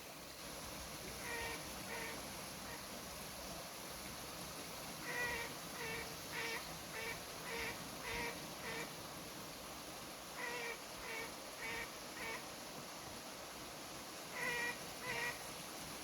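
An animal calling in short notes of one pitch, in groups of two to eight about two a second, over a steady hiss.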